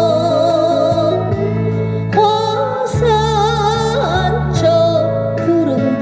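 A woman singing a Korean ballad through a handheld microphone over a recorded backing track with steady bass notes, holding long notes with vibrato.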